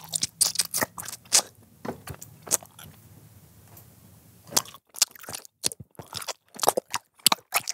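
ASMR mouth noises made right into a microphone: a run of irregular clicks, with a quieter pause in the middle.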